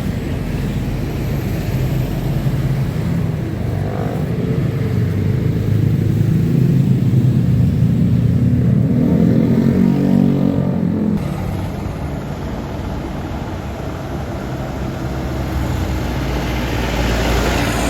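A passing bus on the road: its engine rumble grows louder to a peak around eight to ten seconds in, then eases off.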